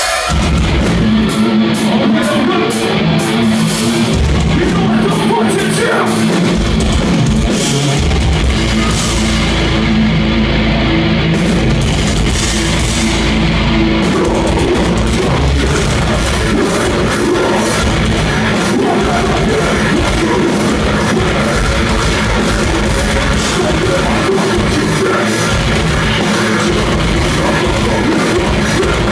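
Heavy metal band playing live at full volume: distorted electric guitars, bass and a drum kit, with a vocalist, kicking in right at the start.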